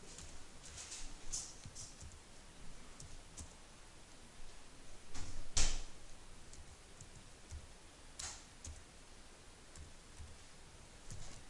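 Computer keyboard keys clicking irregularly as someone types a short message. There is one louder knock about five and a half seconds in.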